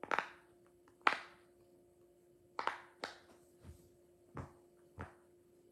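Bubbles of a silicone Pop-It fidget toy being pressed one at a time: about seven short pops at an uneven pace, the first two the loudest.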